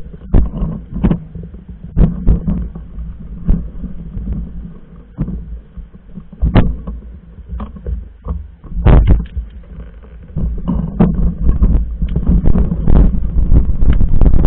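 Mountain bike riding over a rough trail, heard through a camera carried on the bike or rider. There is a continuous low rumble, with irregular knocks and rattles from bumps, some clustered loud jolts about six and a half seconds in, at nine seconds, and again near the end.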